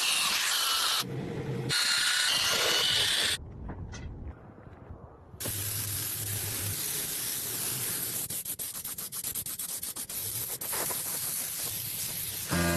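Power sanding or grinding on metal, a rasping noise with a faint whine, cut abruptly between clips, then a steady hiss with scattered clicks for the second half.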